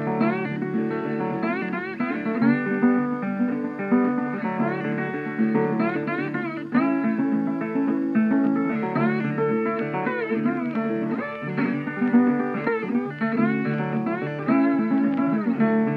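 Background music led by a plucked guitar, with many notes sliding up in pitch over a steady lower accompaniment.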